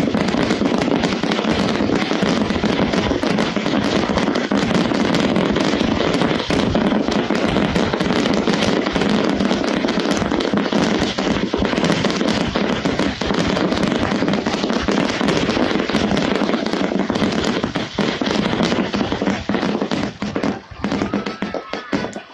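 Fireworks finale barrage: aerial shells bursting in a dense, continuous rapid-fire crackle and bangs, thinning into separate bangs over the last few seconds.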